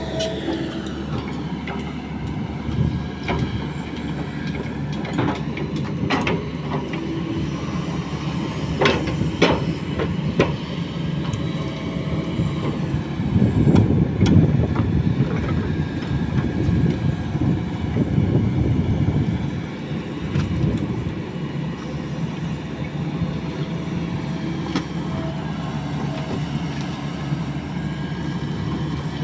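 Kobelco SK200 hydraulic excavator digging a ditch: its diesel engine runs steadily and grows louder for several seconds around the middle as it works under load, with scattered knocks and clanks of the bucket in the first third.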